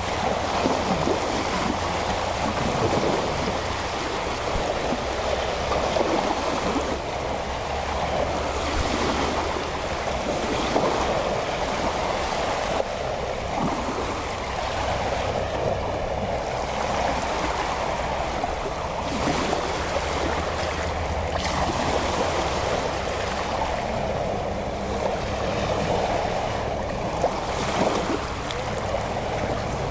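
Small sea waves lapping and splashing at the shore in a continuous wash that swells and ebbs, with a low steady hum underneath.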